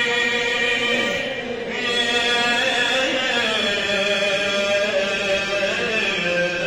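A man's voice chanting devotional praise poetry (madah) into a microphone, in long held notes that bend and ornament in pitch, with a short break about a second and a half in.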